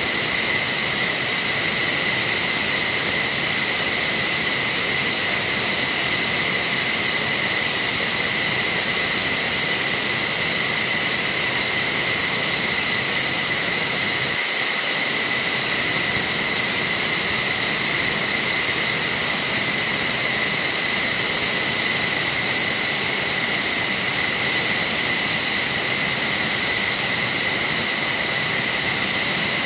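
F-15SG fighter's jet turbines running steadily on the ground: a loud, constant high whine over a dense rushing hiss.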